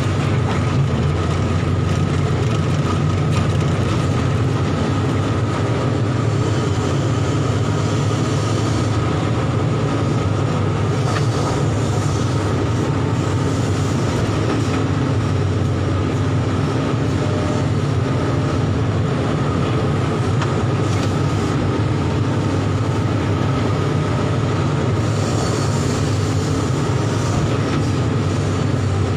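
SANY excavator's diesel engine running steadily, heard from inside the operator's cab: a low drone with a steady high whine over it.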